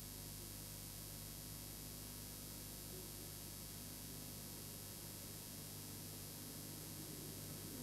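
Faint steady hiss with a low electrical hum underneath: the recording's background noise, with no distinct sound in it.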